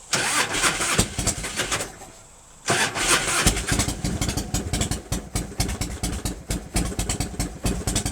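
1997 Harley-Davidson Fatboy's 1340 cc Evolution V-twin being cranked on the starter for about two seconds without starting, then cranked again after a short pause, catching and running. This is a hard start after the bike sat for a month with an empty carburettor float bowl.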